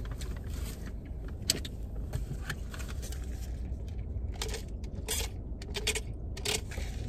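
Diet Coke sipped through the lid of a paper coffee cup: several short slurping sips between about four and six and a half seconds in, over a steady low rumble in the car's cabin. A single sharp click comes about a second and a half in.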